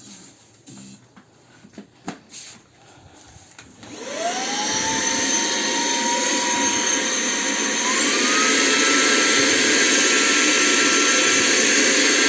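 ILife H70 handheld vacuum cleaner: a few faint clicks, then its motor spins up about four seconds in with a rising whine and a rush of air. It runs steadily, then steps up to a higher, louder speed about eight seconds in and keeps running.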